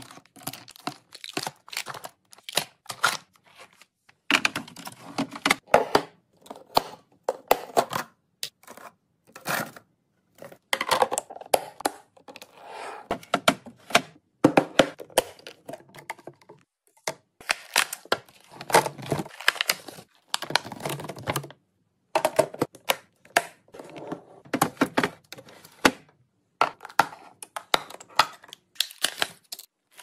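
Plastic packaging and containers being handled up close: yoghurt squeeze pouches crinkling and knocking as they are set into a clear plastic fridge bin, grapes placed into a vented plastic produce container, and near the end blueberries tumbling into a plastic keeper. It is an irregular run of crinkles, clicks and light plastic taps, broken by several short silent gaps.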